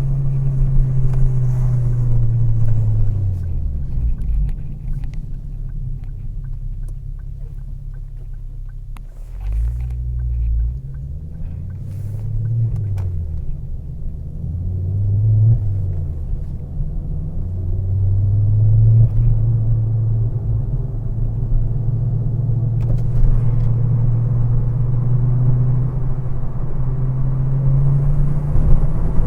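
Turbocharged car engine running under way. Its drone falls off a few seconds in, swells several times through the middle, then settles into a steady cruising hum.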